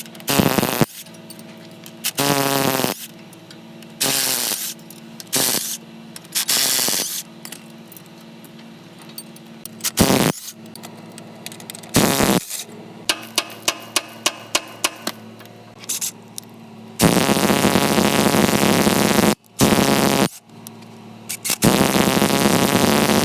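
Workshop power tool work: a string of short, loud bursts and a quick run of rapid knocks, then two longer runs of two to three seconds each near the end, over a steady low hum.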